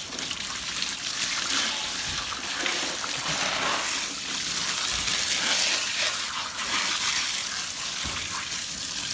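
Steady rush of water from a garden hose spraying over a dog's wet coat and splashing onto the wooden floorboards.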